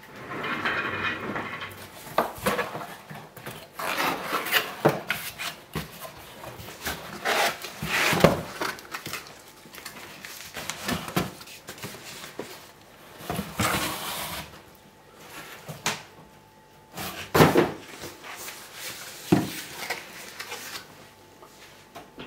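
Corrugated cardboard boxes scraping and rubbing against each other as an inner box is pulled out of a shipping box, with several sharp knocks of cardboard on cardboard and on the table.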